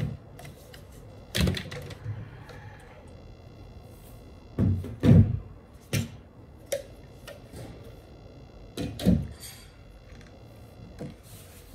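Hard plastic parts of a Dyson V8 cordless vacuum's clear dust bin and cyclone assembly being handled and pulled apart: a series of irregular knocks and clicks, the loudest about five seconds in.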